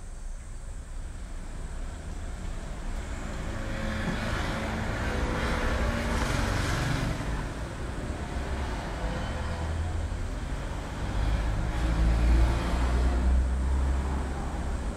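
Ambient road-traffic sound: a steady low rumble with a hiss that swells as if a vehicle passes about five seconds in, then a heavier low rumble from about eleven seconds on.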